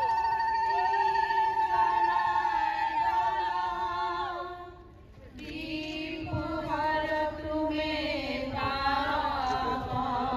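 A group of voices singing a slow, chant-like song. The singing breaks off briefly about halfway and then starts up again, fuller.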